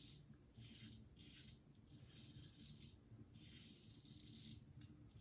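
Thiers-Issard frameback straight razor scraping through lathered stubble in several short, faint strokes, one longer stroke a little past halfway.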